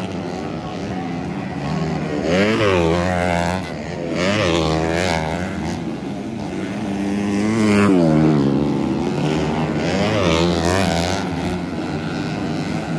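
Several race motorcycles on a dirt grasstrack, their engines revving hard and overlapping. The pitch climbs and drops again and again as the riders open the throttle, shift and back off into the corners, and grows loudest as bikes pass close.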